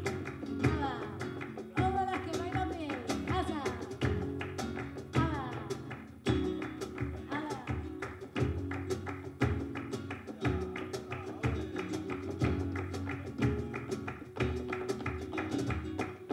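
Live flamenco guajira: Spanish guitar playing with hand percussion and frequent sharp strikes of the kind a dancer's shoes make on the stage.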